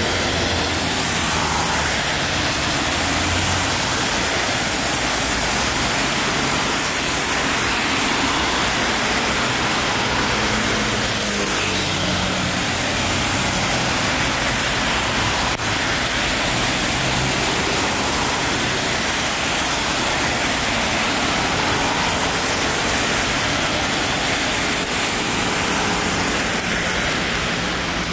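Steady hiss of rain and of car tyres on a wet road, with engines running low underneath as traffic passes.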